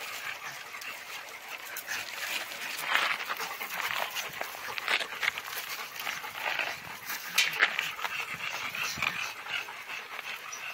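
A pug and a shaggy black dog play-wrestling, panting, with irregular scuffling on gravelly dirt.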